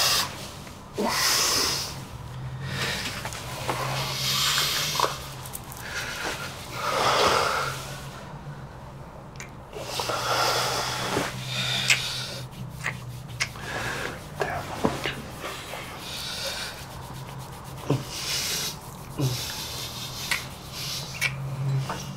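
A man snoring in his sleep, with heavy, noisy breaths every two to three seconds. A steady low hum runs underneath.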